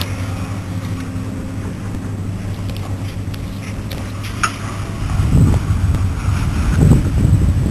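A steady low motor hum, joined about five seconds in by wind buffeting the microphone.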